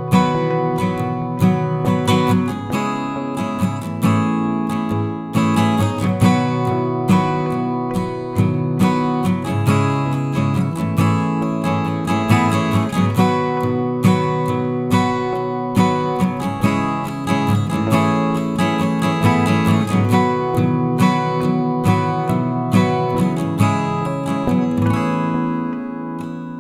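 Background music of strummed acoustic guitar, with steady strokes that ease off slightly near the end.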